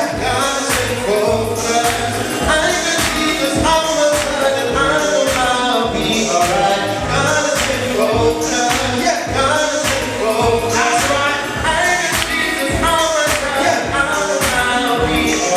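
Gospel hip-hop music playing loud, with a steady beat under sung vocals.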